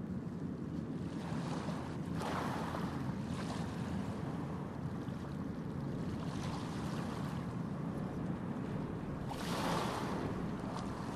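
Steady low rushing background noise, with two brief louder swells of hiss about two seconds in and about nine and a half seconds in.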